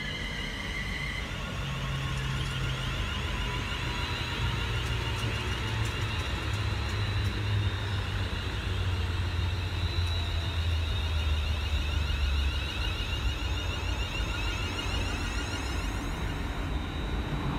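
A train passing close by: a rumble that swells and holds, with a low hum stepping down in pitch and a high whine above it, and a short run of faint clicks near the middle.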